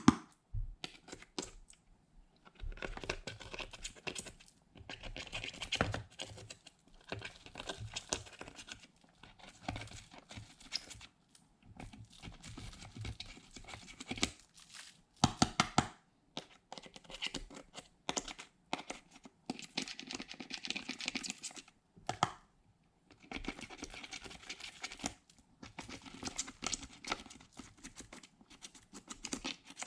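Slime being stretched, folded and squished by hand, crackling and popping in bursts of a second or more, with short pauses between.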